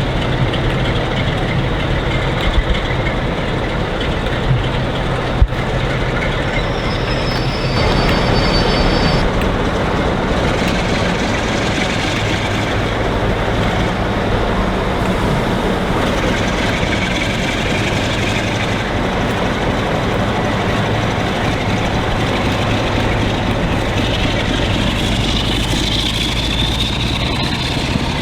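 A train moving along the track, with steady running noise and a faint rising whine near the end.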